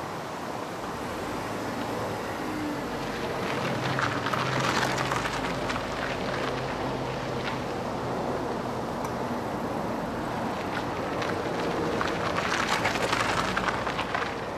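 Smart fortwo's small three-cylinder engine running at low revs as the car drives tight circles on full steering lock over gravel, its tyres crunching and crackling on the loose stones. The crunching swells twice as the car passes closest, about four seconds in and again near the end.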